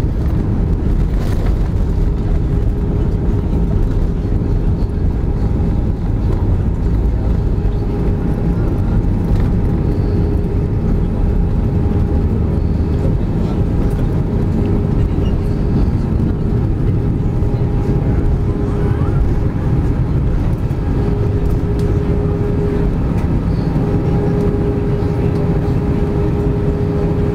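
Airbus A320 passenger-cabin noise during the landing rollout and turn-off: a steady loud engine hum over a low rumble of the wheels on the runway, with a droning tone running through it.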